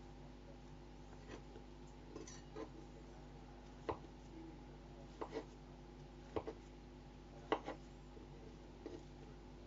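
Scattered light clicks and taps, a dozen or so and often in quick pairs, over a steady electrical hum.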